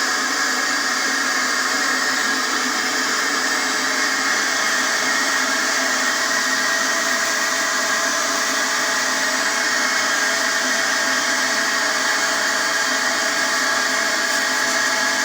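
Toilet running: a loud, steady rush of water with a steady whine in it, unchanging throughout.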